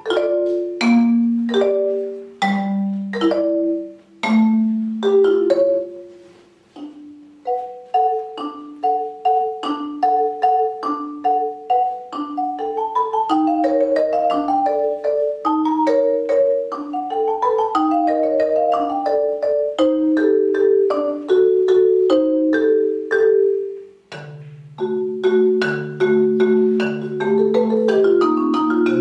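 Solo marimba played with mallets in a flowing series of ringing struck notes in a steady rhythm. It breaks off briefly about 24 seconds in, and lower notes then come in.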